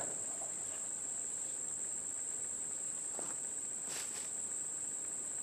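Steady chorus of insects in the woods, one continuous high-pitched buzzing note. A couple of faint rustles or footfalls come about three and four seconds in.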